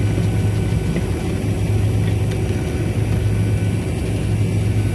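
Vacuum pump running with a steady low hum while it evacuates a refrigeration system in deep vacuum, near 290 microns.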